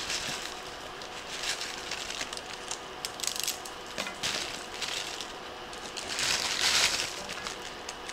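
Plastic instant-ramen wrappers crinkling and broken dry noodles tipping out of them into a pot, in several bursts of crackling. The loudest burst comes about six seconds in.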